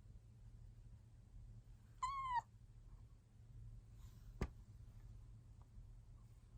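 Asian small-clawed otter giving one short, high squeak about two seconds in, slightly arched in pitch, followed by a single sharp click a couple of seconds later. It is the call this otter makes when sleepy or wanting attention.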